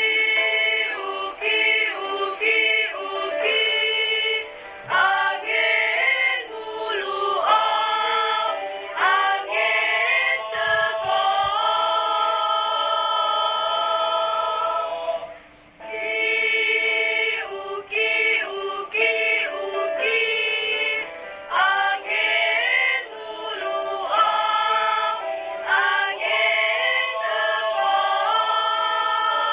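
Mixed school choir singing an Indonesian ethnic-style choral arrangement in parts, with a brief pause about fifteen seconds in before the voices come back in.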